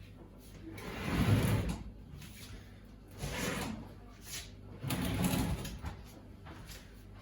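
A washing machine being dragged out from its place, scraping and sliding across the floor in about four short pulls.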